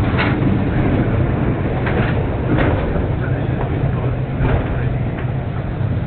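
Takao Cable Car, a funicular, running on its rails as it climbs. A steady low rumble with a few brief clicks scattered through.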